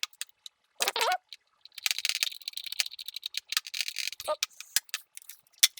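Hand assembly of a plastic drone body: irregular clicks and taps of parts and small screws being fitted, with a stretch of scraping about two seconds in.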